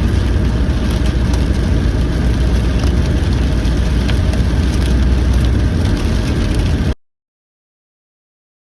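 Heavy thunderstorm rain pelting down hard, a dense loud hiss full of sharp drop impacts over a deep steady rumble, stopping abruptly about seven seconds in.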